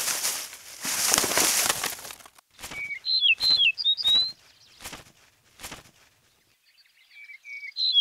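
A leopard cat's lunge through dry leaf litter and a small bird flapping off: two loud bursts of rustling and wingbeats in the first two seconds, then a few sharp taps. Short, high chirps from the bird come around the middle, and more chirps come near the end.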